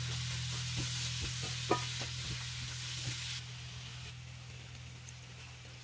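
Poha with peanuts, cashews and grated carrot sizzling in a frying pan while a wooden spatula stirs it, with scattered light knocks of the spatula against the pan. The sizzle cuts off suddenly about three seconds in, leaving a steady low hum.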